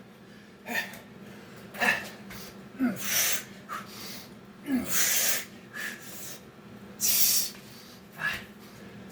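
A man breathing hard during Navy SEAL burpee reps: short grunts and sharp exhales every second or so, some dropping in pitch, with three longer rushing breaths.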